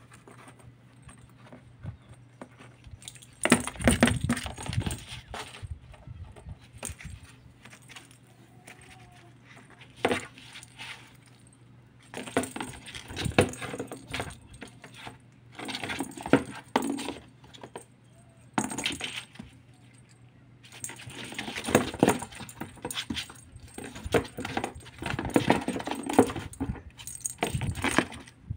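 Kitten batting a small perforated plastic ball around a cardboard box: repeated bursts of clicking, rattling and scratching on the cardboard, with quiet gaps between and the busiest stretch near the end.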